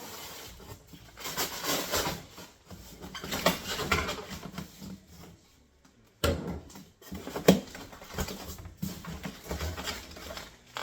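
Rustling and handling noises of packaging being unpacked, broken by a couple of sharp knocks from about six seconds in.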